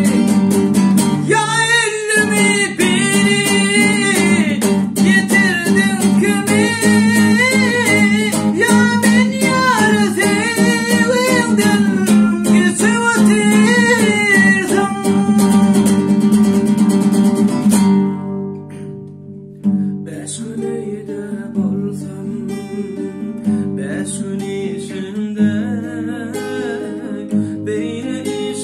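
Two nylon-string classical guitars strummed fast with a man singing over them. About two-thirds of the way through the strumming stops abruptly and the guitars go on quieter and sparser, with softer singing.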